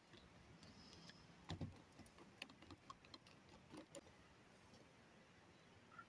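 Faint, scattered clicks and taps of a screwdriver and stiff cable ends against the plastic housings and terminals of circuit breakers, with one duller knock about a second and a half in.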